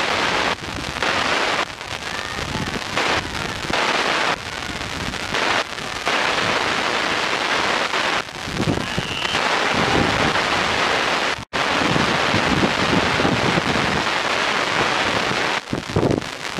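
Wind buffeting the microphone, a loud rushing noise that swells and dips unevenly, cutting out for an instant about eleven seconds in.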